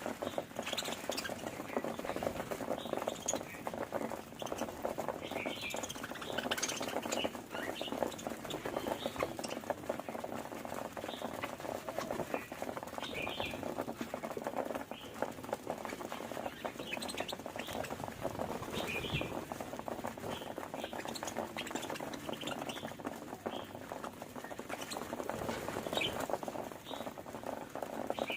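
Budgies chattering: a continuous fast, scratchy warble with frequent short high chirps.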